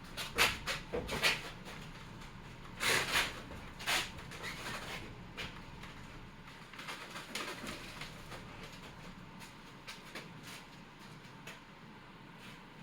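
Pry bar working at the bottom of a brad-nailed box: a run of sharp knocks, scrapes and creaks, loudest in the first four seconds, then lighter scattered clicks.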